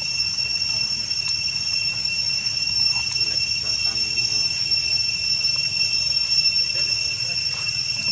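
Steady high-pitched drone of forest insects, typical of cicadas, holding one shrill note over a low background rumble.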